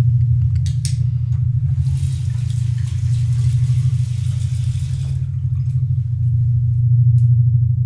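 Water runs from a tap into a bathroom sink for about three seconds, starting about two seconds in, over a steady deep rumble that goes on throughout.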